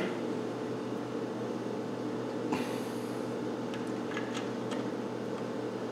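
Steady low machine hum in the workshop. About two and a half seconds in there is a short rustle, and soon after a few faint light clicks as a connecting-rod bearing cap is set onto its rod.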